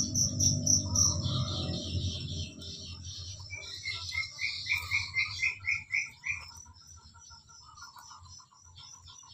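Background chirping of small animals: a fast, even train of high chirps that fades out in the first second or two, a run of about eight quick chirps around four seconds in, and a steady pulsing call underneath that carries on to the end. A low rumble sits under the first couple of seconds.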